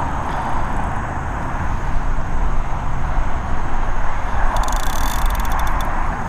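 Fishing reel drag ticking rapidly for just under a second, about four and a half seconds in, as a hooked carp takes line on a run, over a steady rushing noise.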